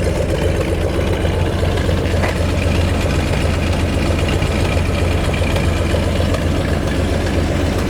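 Rebuilt numbers-matching 327 cubic-inch, 300 hp small-block V8 of a 1965 Corvette idling steadily.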